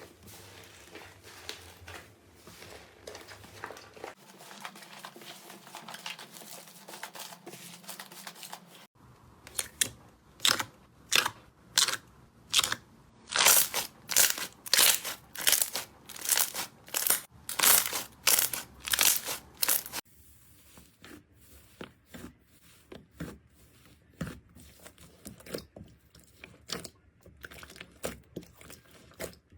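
Crunchy slime being pressed and squished by hand, crackling softly at first, then a long run of loud crunches at about one a second in the middle, then softer scattered crackles near the end.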